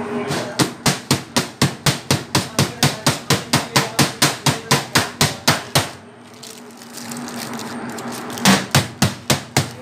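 Aluminium baking tray full of brownie batter knocked down repeatedly on a stainless steel counter, about four knocks a second for some five seconds, then a short second run of knocks near the end: tapping the tray to settle and level the batter.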